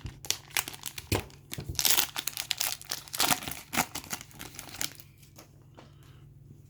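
The wrapper of a trading card pack being torn open and crinkled by hand, a run of sharp crackles that dies away about five seconds in.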